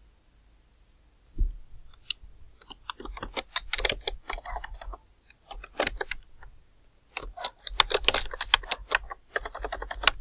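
Typing on a computer keyboard: quick runs of key clicks with short pauses between words. A single low thump comes about one and a half seconds in, before the typing starts.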